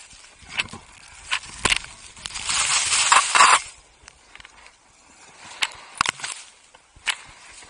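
Skis sliding through powder snow, with a loud rush of snow from about two to three and a half seconds in, and scattered sharp knocks and taps on the camera, one as snow sprays over it near the end.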